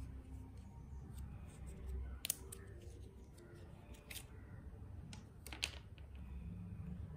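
A coiled charging cable being handled and its paper wrap tie slipped off: light rustling and crinkling with a few sharp clicks, the two loudest about two seconds in and about five and a half seconds in.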